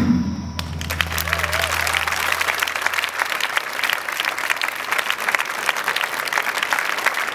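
Audience applauding, many hands clapping steadily, while the last low note of the dance music fades out over the first few seconds.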